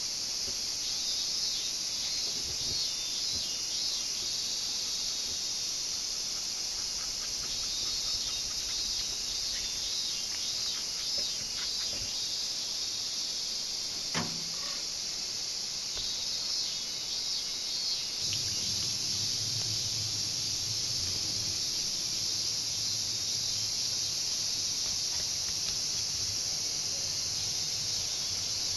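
A steady, high-pitched chorus of insects chirring, with a single sharp knock about halfway through and a low hum joining in about two-thirds of the way through.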